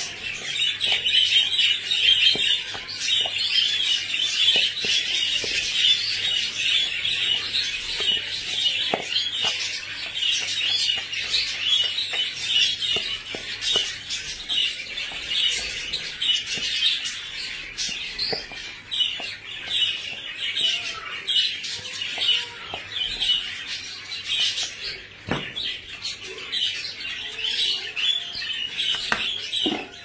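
A flock of small caged birds chirping and chattering continuously in high, rapid notes, with a few faint knocks from mixing food in a plastic bowl.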